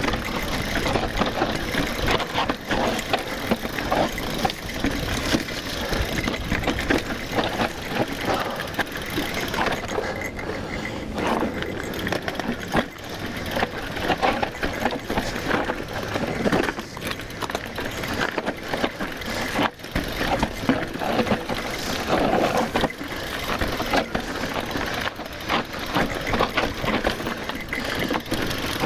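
Mountain bike riding a rough dirt trail: steady tyre noise with constant rattling and frequent knocks from the bike over roots and rocks.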